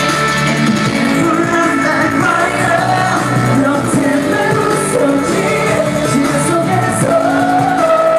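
K-pop boy band performing live: male singing over a loud pop backing track.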